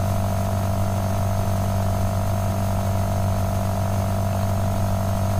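Steady electrical hum in the recording: a low buzz with a few higher fixed tones, unchanging throughout.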